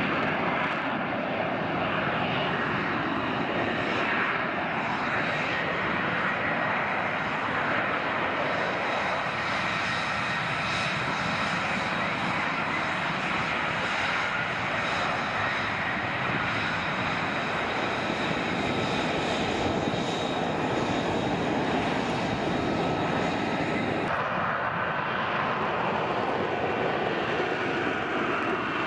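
Jet aircraft engine running: a dense, steady rush of noise with a thin whine on top, changing abruptly near the end.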